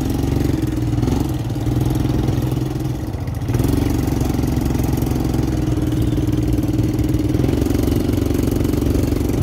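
Quad bike engine running under way as it is ridden, a steady hum that dips briefly about three seconds in and then holds steady again.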